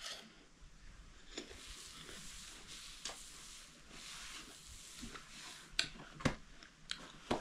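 Quiet small-room ambience with a faint steady hiss and scattered soft clicks and knocks, a few sharper ones clustered near the end.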